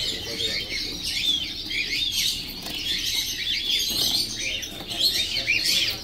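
Many caged show birds, finches, canaries and parakeets, chirping at once: a dense chorus of short, high, overlapping calls.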